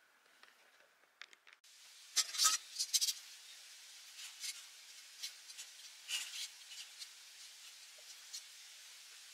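Metal tongs clinking on a wire grill net while turning rice cakes, with a cluster of sharp clicks about two seconds in and lighter scattered taps after, over a steady faint hiss.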